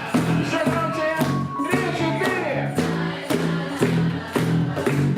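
Live rock band playing: repeated chords over a steady drum beat, with a wavering melodic line from a voice or lead instrument.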